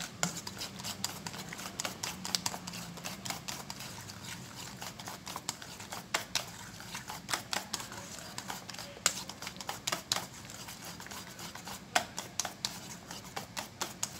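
Wire balloon whisk beating thick cake batter by hand in a glass bowl: a quick, uneven run of clicks and taps as the wires strike the bowl's sides and bottom, with a wet slapping of the batter.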